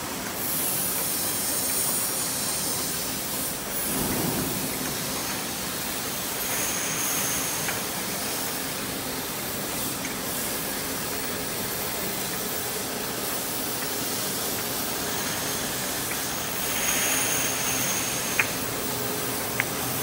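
Automatic glass-bottle washing and conveyor line running: a steady spray-like hiss of machinery with faint high whines that come and go, and a couple of sharp clicks near the end.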